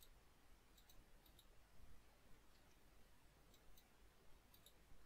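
Near silence with a handful of faint, scattered clicks from working a computer's mouse and keyboard.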